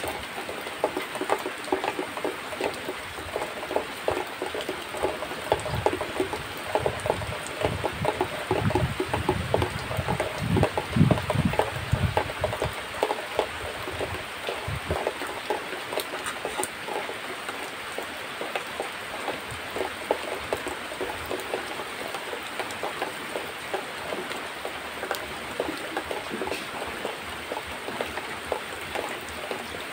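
Milk squirting from a cow's teats into a plastic bucket during hand milking: a dense, irregular spatter. A louder low rumble comes in near the middle.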